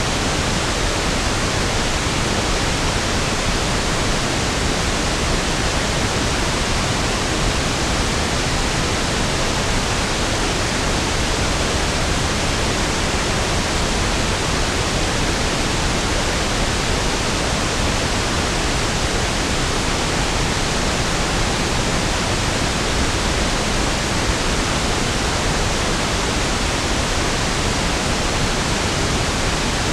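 Steady pink noise (1/f noise), a smooth, even hiss with equal energy per octave, unchanging throughout.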